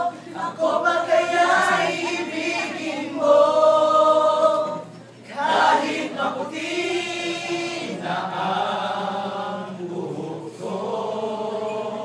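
A group of voices singing together in long held notes, the phrase breaking off briefly about five seconds in before the singing resumes.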